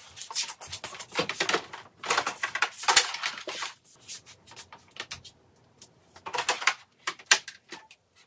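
Dishes and utensils being handled: clinks and rattles in two dense clusters, then a few scattered clicks later on.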